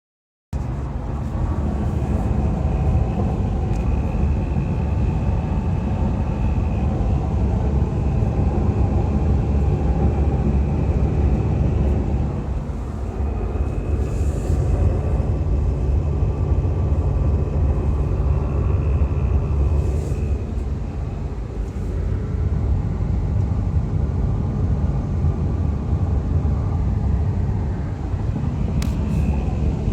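Inside the cabin of a 2015 VW Golf TDI: a steady low rumble of the car with a faint rattle, loudest near the windshield, which the owner traced to two loose nuts.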